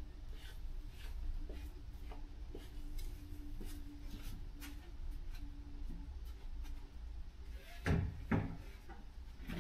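Two thumps half a second apart near the end, as a plywood floor panel is picked up and handled. Before them there is faint room noise with a low steady hum and scattered light clicks.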